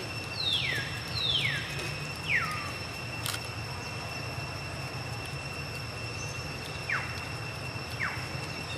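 An animal's short, high calls, each sliding quickly down in pitch: three close together early on, then two more near the end, over a steady high-pitched drone.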